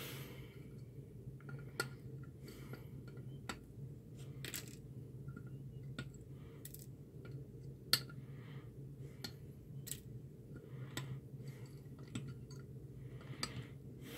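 Diagonal cutters snipping the excess resistor leads off the back of a circuit board: a series of sharp snips, roughly one a second, over a low steady hum.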